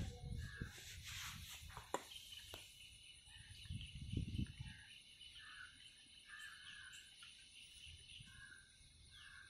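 Faint outdoor ambience: a steady high insect drone with short bird calls repeating every half second or so, and a few soft handling knocks in the first two seconds.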